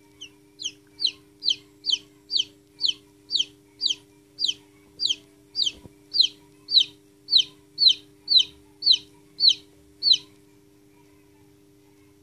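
A newly hatched chicken chick peeping: a run of about twenty loud cheeps, each falling in pitch, about two a second, stopping about ten seconds in.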